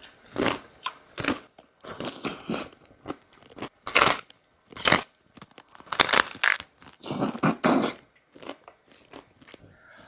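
Close-up chewing and crunching of crispy lechon (roast pork), a series of irregular crunches, one or two a second.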